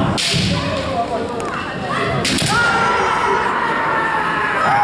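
Bamboo shinai strikes cracking sharply on kendo armour near the start and about two seconds in, followed by a long drawn-out kiai shout from a fencer.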